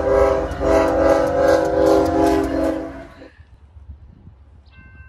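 Diesel freight locomotive's air horn sounding a chord in two blasts, a short one and then a long one, cutting off about three seconds in.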